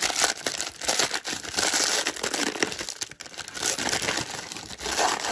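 Brown wrapping paper crinkling and rustling as hands unfold it and pull it open, in uneven crumpling bursts.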